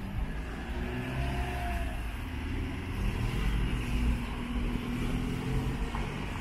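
A car engine running on a rain-wet street, a low rumble with a faint steady hum, over the even hiss of rain and wet road noise. It swells a little in the middle.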